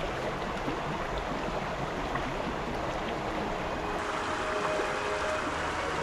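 Steady rush of running water from a stream or small falls. Faint background music with held notes comes in about four seconds in.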